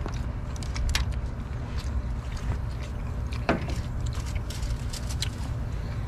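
Steady low rumble, with scattered light clicks and clinks of spoon and tongs against plates and a sauce bowl, one louder clink about three and a half seconds in.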